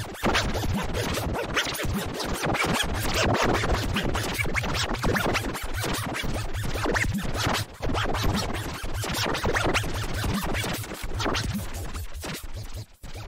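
Electronic music with a steady, driving beat and deep bass, overlaid with DJ record scratching; it thins out near the end.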